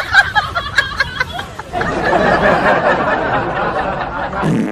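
People chuckling and chattering, several voices overlapping into a dense babble of laughter and talk from about two seconds in.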